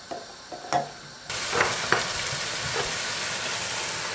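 Eggs knocking lightly against a metal saucepan as they are set in it, then, a little over a second in, a steady sizzle of tomato stew frying in a pot on the stove, with a few light knocks in it.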